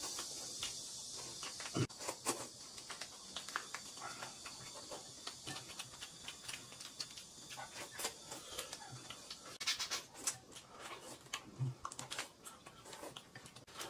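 Close-up eating sounds: noodles slurped and chewed, with the crackle of small plastic snack wrappers being torn open and handled, many short sharp clicks scattered throughout. A faint steady hiss runs underneath and cuts off about ten seconds in.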